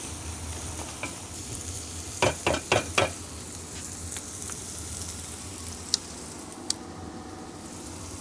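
Onions frying with spices and adjika in a pan over a fire, a steady sizzle. A little after two seconds in comes a quick run of four strokes as a wooden spoon stirs against the pan, and later two small clicks.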